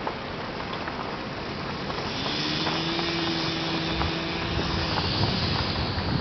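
Steady rumble and wind noise of a vehicle moving slowly along a dirt road, with a steady droning hum that comes in about two seconds in and fades out near five seconds.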